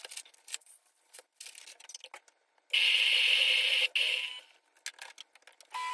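Light clicks and rattles, then an electric espresso grinder runs for just over a second, grinding coffee beans, and stops abruptly, followed by a few more small clicks.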